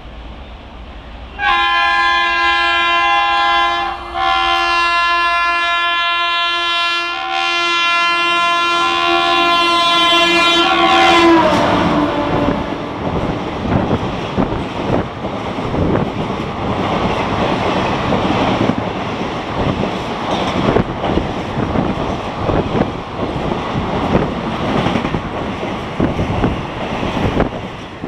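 WAP-4E electric locomotive sounding its high-tone horn in three blasts, the last held long and dropping in pitch as the engine passes. Then the coaches of an express rush past with steady wheel clatter on the rails, fading near the end.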